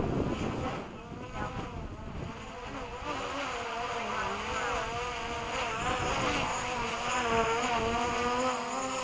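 DJI Mavic Pro quadcopter's propellers buzzing as it comes in to land, the pitch wavering as the motors fight gusty wind, growing louder about three seconds in as the drone nears. Wind buffets the microphone with a low rumble.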